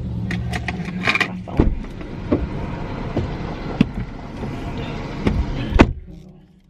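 Inside a parked car: a low engine hum at first, then scattered clicks and knocks, with one loud thump near the end.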